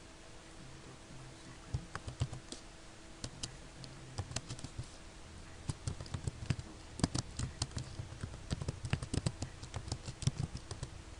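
Typing on a computer keyboard: irregular keystrokes, a few scattered ones at first, then a quicker, denser run of taps from about halfway in. A faint steady low hum lies underneath.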